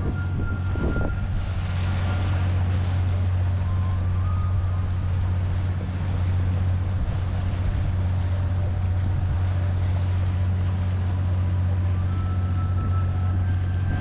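Engine of the Appare sightseeing boat running steadily under way, a constant low hum.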